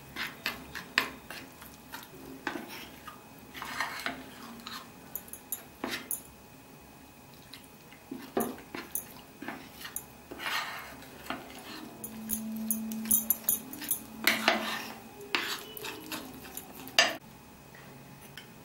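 Hand mixing flour, spices and water into a pakora batter in a glass dish: irregular knocks, scrapes and squelches against the glass.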